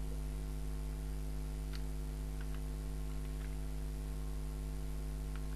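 Steady low electrical hum on the recording, with a handful of faint, irregular computer-keyboard key clicks as a search word is typed.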